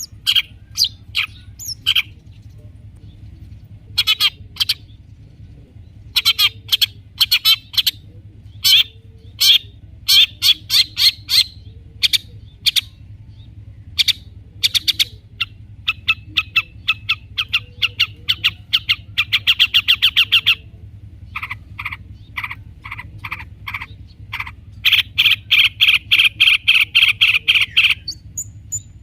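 Long-tailed shrike (cendet) singing in bursts: runs of short, sharp chattering notes and two long, fast rattling trills, with brief pauses between phrases.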